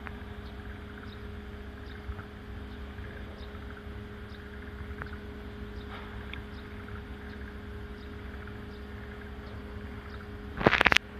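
Steady low engine drone with a constant hum, idling without change, and faint high chirps over it. A brief loud rasping burst comes near the end.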